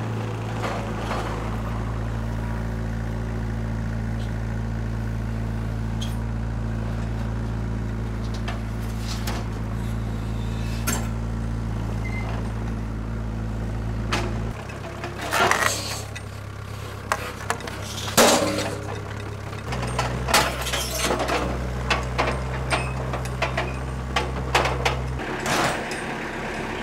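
Engine of a compact tracked mini loader running steadily while it carries a steel welding table on its forks, the engine note shifting a few times. Sharp metal clinks and knocks from the table and loader frame come a few times in the second half.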